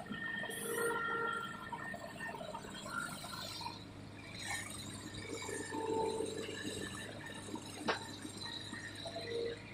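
Excavator digging a ditch in water: water splashing and pouring off the bucket over a steady low engine hum, with one sharp click near the end.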